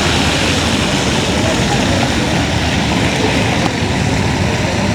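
Indistinct chatter of many voices over a loud, steady background hum, with no single voice standing out.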